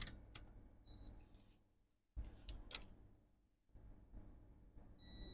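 Near silence with a few faint clicks, then about five seconds in a digital multimeter's continuity buzzer starts a steady high beep: the probes have found a short to ground on the MacBook Pro A1990's PPBUS power rail, typical of a failed C9081 capacitor.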